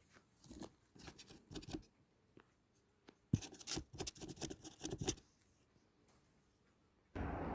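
Kittens' paws and claws pattering and scratching on a hard surface: quick light clicks and scrapes in two flurries, the second louder. Near the end a steady hiss comes in.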